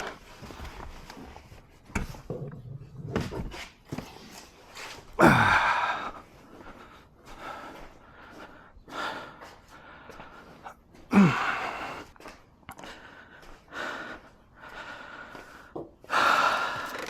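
A man's short voiced exhales or grunts of effort, three times, each falling in pitch. Between them are faint clicks and knocks of parts and tools being handled.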